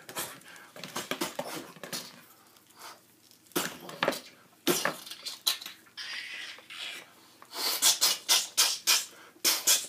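Plastic action figures knocked together and handled in a mock fight: a run of uneven clicks and knocks, coming fast and close together near the end.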